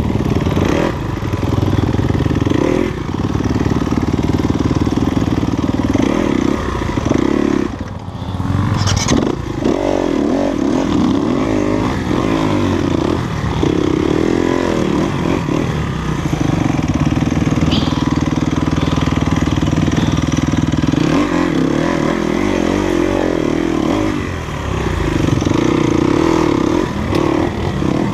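Enduro dirt bike engine running under throttle on a trail, its pitch rising and falling as the throttle is worked. The engine drops off briefly about eight seconds in and again near twenty-four seconds.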